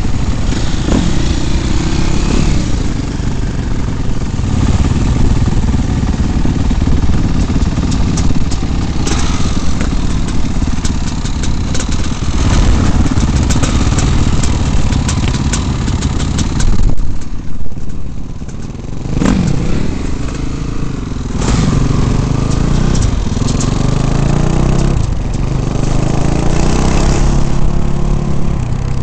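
Off-road motorcycle engine running close to a helmet-mounted microphone, revving up and down as the bike rides, with a brief lull about two-thirds of the way in.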